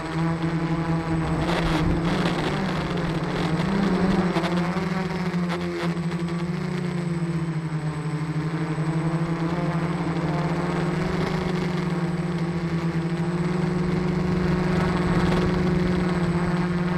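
Motors and propellers of the radio-controlled aircraft carrying the camera, heard from on board: a steady buzzing hum whose pitch wavers a couple of seconds in, then holds steady.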